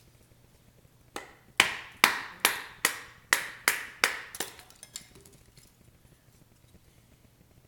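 A folding knife being batoned through a piece of split wood: about nine sharp knocks of a wooden baton on the blade's spine in quick succession, each with a short ring, stopping about four and a half seconds in.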